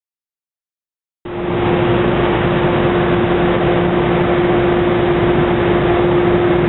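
After about a second of silence, a steady mechanical hum with one constant mid-pitched tone sets in. It comes from an MTR M-Train (car C278) standing at the platform, not accelerating.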